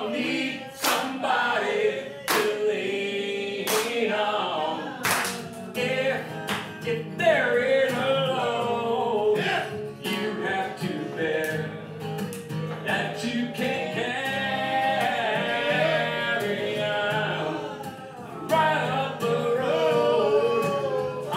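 A man singing over his own strummed Takamine GD20 NS acoustic guitar, amplified through a K&K Pure Mini pickup, with sharp percussive strums cutting through.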